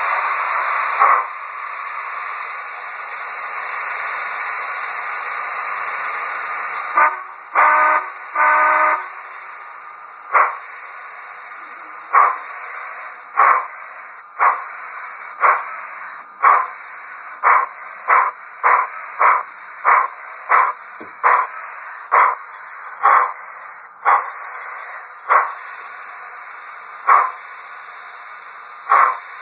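TCS WOW Sound decoder in an HO-scale Bachmann 2-8-0 steam locomotive, playing through the model's small speaker. It gives a steady steam hiss, then three short whistle toots, then exhaust chuffs as the engine pulls away. The chuffs quicken to about two a second, then slow again to about one every second or two.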